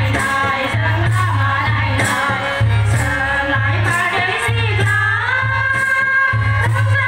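Bodo Bwisagu folk dance song: women singing a sliding melody over a steady, regular drum beat.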